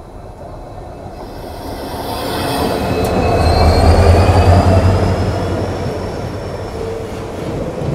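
EMD WDP4D diesel locomotive (16-cylinder two-stroke engine) passing close by at speed, its engine rumble swelling to a peak about four seconds in, followed by its passenger coaches rolling past with high-pitched squealing that slides in pitch.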